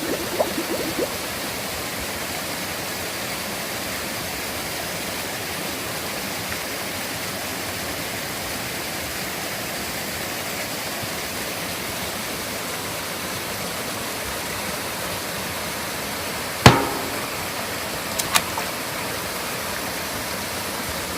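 Mountain valley stream running over rocks: a steady rush of water. A single sharp knock cuts through it about three-quarters of the way in, followed by two fainter clicks.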